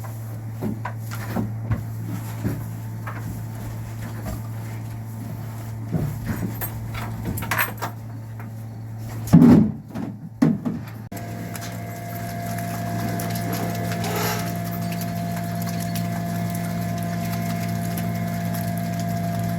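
Steady machine hum with scattered knocks and clatter, and two loud thuds about halfway through. Then the sound changes abruptly to a different steady hum with a thin higher whine over it.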